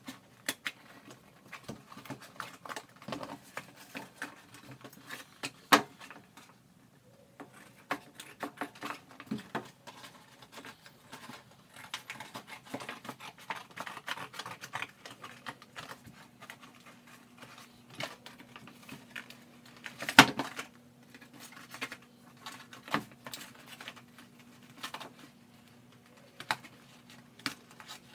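Scissors cutting through a thin cardboard cereal box: an irregular run of snips and clicks with the box being handled and rustled, two sharper clicks standing out.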